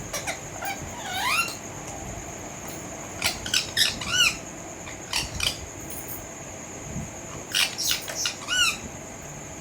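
Pet parrot giving short chirping squawks in four quick clusters, each call an arched up-and-down sweep in pitch.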